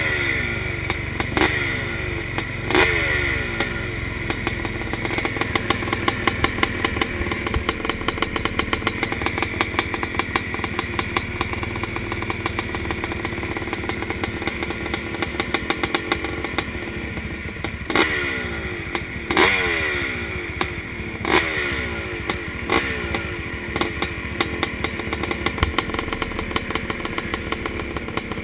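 A row of vintage motocross bikes running together behind the start gate, engines ticking over with a rapid crackle. Riders blip their throttles, the revs flaring and falling away three times in the first few seconds and again three or four times about 18 to 23 seconds in.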